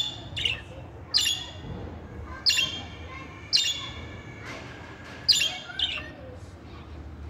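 Budgerigars calling: a series of short, sharp chirps about a second apart, ending about five seconds in.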